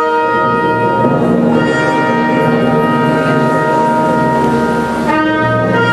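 Orchestral music with brass and wind instruments playing held chords, with the notes changing every second or so.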